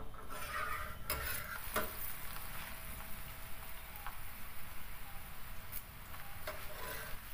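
Paratha frying on a flat iron tawa, a steady sizzle, with a slotted metal spatula clicking and scraping against the griddle a few times as it is pressed and turned.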